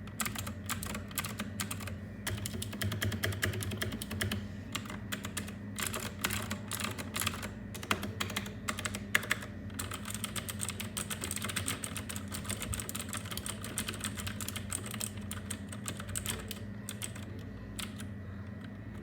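Typing on a Royal Kludge RK61 mechanical keyboard with clicky blue switches: a fast, dense run of key clicks that thins out near the end.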